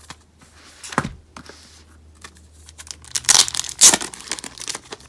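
Packaging wrapper being torn open and crinkled by hand, a brief rustle about a second in, then a burst of loud crackling and tearing a little after three seconds in.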